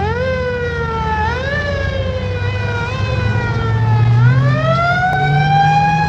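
A siren wailing, its pitch sliding slowly down, jumping back up, then falling and climbing again near the end, over a steady low rumble.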